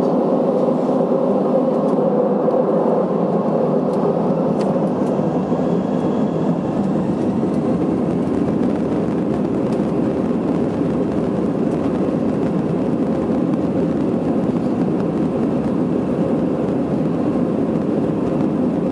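Steady jet-engine and rolling noise of an Airbus A320 heard from inside the passenger cabin as the aircraft moves along the runway, an even, loud rush with no clear rise or fall.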